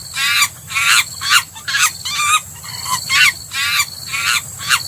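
Chimpanzee calling: a series of short, high, wavering calls, about two a second, over a steady high insect drone.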